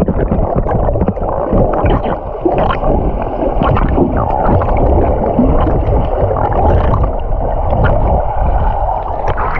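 Stream water gurgling and churning close to the microphone, loud, steady and muffled, with scattered short splashes.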